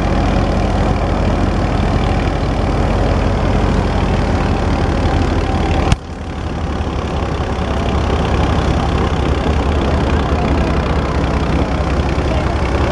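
Massey Ferguson 240's three-cylinder diesel engine running steadily under load as it drives a wheat thresher, with the thresher drum turning and wheat sheaves being fed in. About halfway through there is a sharp click and a brief dip in level, after which the same steady running resumes.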